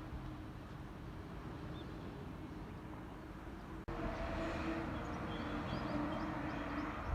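Outdoor ambience: a steady hiss that changes abruptly about four seconds in to a louder stretch, where a low hum runs under many short, repeated bird chirps.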